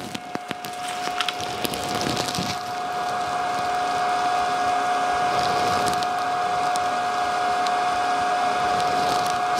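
Z-axis stepper motor of an Elegoo Mars 3 resin printer running, driving the build platform down its lead screw to the home (zero) position: a steady whine at one pitch that grows louder over the first few seconds and then holds.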